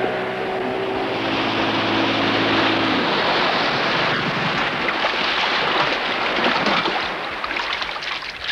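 Outboard motor running steadily at speed. About three seconds in the engine tone gives way to a loud rush of wind and water spray, which eases off near the end.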